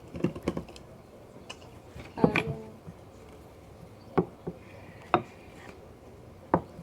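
Scattered sharp taps and knocks of Play-Doh tools, such as a knife and rolling pin, set down or pressed on a tabletop: a few quick taps at first, a louder clatter about two seconds in, then single knocks spaced a second or so apart.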